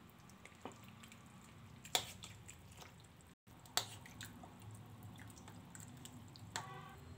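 Metal spoon pressing and turning bael fruit pulp soaked in water in a bowl: faint wet squishing, with a few light clicks of the spoon against the bowl.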